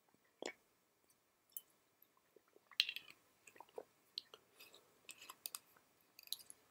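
Faint, irregular small clicks and ticks in a near-quiet pause, the clearest a little under three seconds in.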